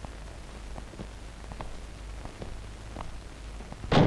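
A wooden door swinging shut with a single loud knock near the end, over a low steady hum with faint scattered clicks.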